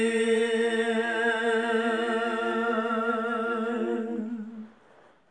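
A man's voice singing a Gojri bait, a folk verse, unaccompanied, holding one long, slightly wavering note that fades out about four and a half seconds in.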